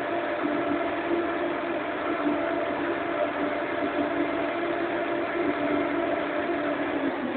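Crane hoist motor running steadily with a hum, its pitch dropping right at the end as it slows.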